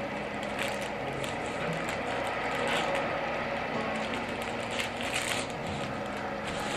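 Forks and utensils clinking on plates over a steady background din, as dessert is cut and served at the table.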